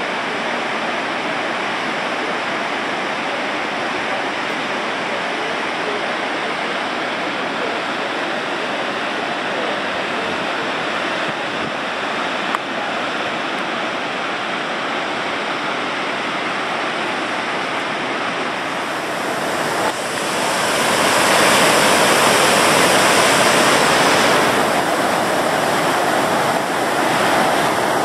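Victoria Falls: the steady rush of a large waterfall and its river rapids. It grows louder and brighter about two-thirds of the way through.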